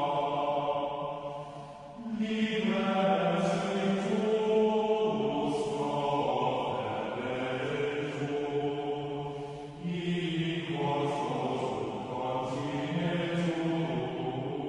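Background music of voices chanting in long held notes, with a new phrase starting about two seconds in and another near ten seconds.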